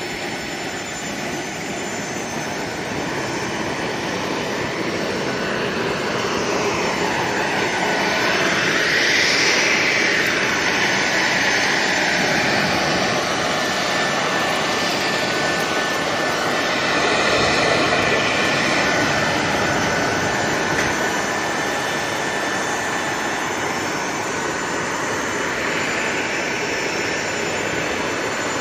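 Jet aircraft noise: a steady high whine over a rushing roar. It swells louder about a third of the way in and again just past halfway.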